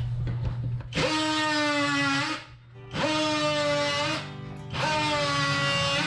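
Background music: long held notes, a new one sounding about every two seconds, after a few clicks in the first second.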